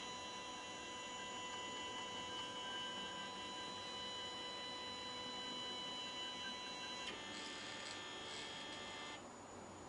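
Stepper motors of a CNC3018-based PCB drilling machine whining steadily as the gantry carriage homes along the X/Y axes. The whine shifts to a different, higher pitch about seven seconds in and stops about nine seconds in.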